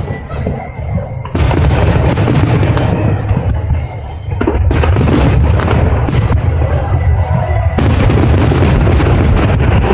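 Aerial fireworks bursting in a dense, continuous barrage of overlapping booms and bangs, with two brief lulls in the first half.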